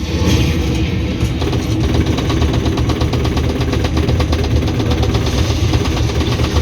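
An engine running steadily, with a low, even rumble.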